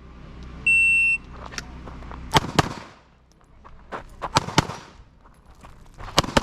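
An electronic shot timer's start beep, one steady high tone for about half a second, followed by pistol shots fired in quick pairs and small strings: an IPSC stage run beginning on the buzzer.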